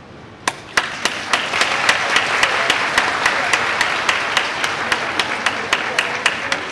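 Audience applauding, starting about half a second in, with single sharp hand claps from close by standing out in the crowd's clapping.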